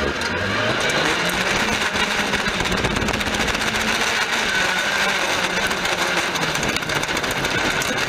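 Autocross race car's engine running hard, heard from inside the cockpit, loud and continuous, its pitch drifting up and down with the throttle.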